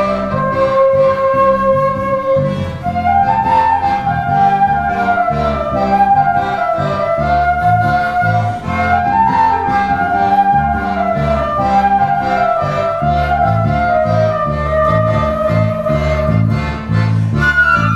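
Live trio music: a flute plays a winding melody over accordion and a pulsing electric bass line.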